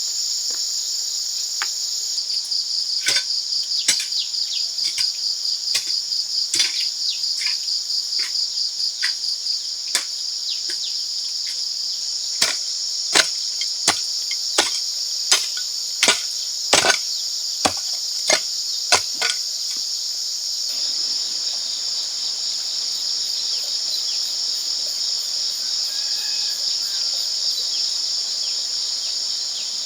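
A steady, high insect chorus of crickets or cicadas throughout. Over it comes a series of sharp knocks. They are faint at first, then about ten louder strikes come near the middle at roughly one and a half a second, and they stop after about nineteen seconds.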